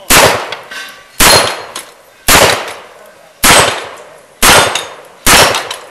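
Six gunshots from a 4-inch Smith & Wesson 625 revolver, fired at a steady pace of about one a second, each with a short ringing tail.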